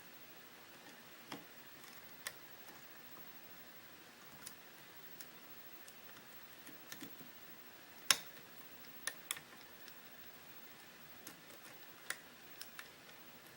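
Scattered light clicks of a steel lock pick working the pin tumblers of a Russwin lock cylinder during single-pin picking, at irregular times, the sharpest about eight seconds in.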